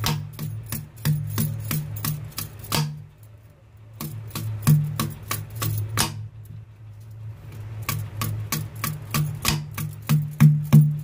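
A large knife hacking repeatedly at the husk of a tender yellow coconut in rapid, irregular sharp chops, pausing briefly about three seconds in. Background music plays under the chopping.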